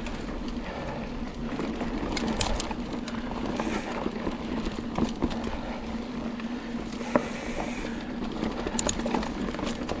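Santa Cruz Hightower LT mountain bike riding down a dirt singletrack: tires rolling over dirt and leaf litter with a steady hum, and the bike clattering sharply over bumps several times.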